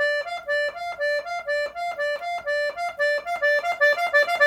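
Accordion playing a run of short, repeated staccato notes that alternate between a lower and a higher note and quicken near the end, imitating the call sound an elote (street corn) vendor uses.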